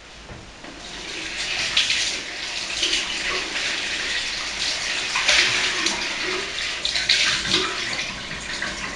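Water running from a kitchen tap and splashing as a rice container is rinsed and washed under it, the flow building up about a second in.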